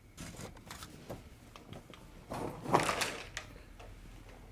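Handling noise on a phone held in the hand: scattered light taps and clicks, with a louder rustle about two and a half seconds in.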